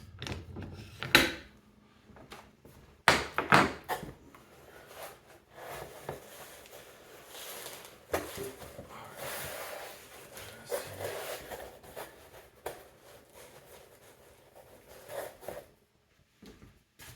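Handling noises of golf clubs and a loft-and-lie machine's clamp: a few sharp knocks and clanks in the first four seconds, then a long stretch of rustling and scraping that stops near the end.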